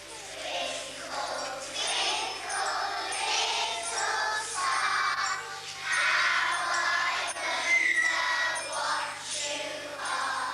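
Christmas music with voices singing together, possibly a children's choir, with a light jingling accompaniment.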